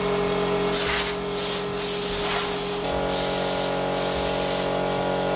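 Compressed-air blow gun hissing in repeated blasts, blowing sand and dried mud out of a vehicle chassis, over a steady machine hum.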